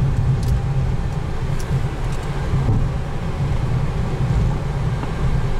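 Steady low rumble on a Boeing 737NG flight deck while the aircraft taxis, its engines at idle.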